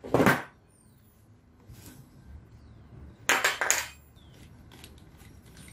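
Metal hand tools clanking: one sharp clatter just after the start and a quick double clank a little past halfway.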